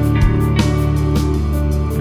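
Background music: a guitar track with a steady drum beat.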